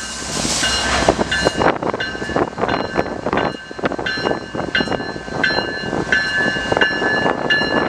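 Lash-up of BNSF and Norfolk Southern diesel locomotives rolling slowly past, engines running and wheels knocking over the rails. A bell rings over it about every two-thirds of a second.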